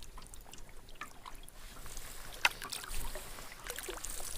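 Canoe paddling: paddle strokes splashing and dripping in the water at an easy pace, with a sharp knock about two and a half seconds in.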